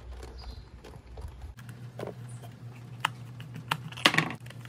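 Scattered clicks and knocks of the singing fish's hard plastic back cover being handled and pressed into place, with a small cluster of knocks near the end.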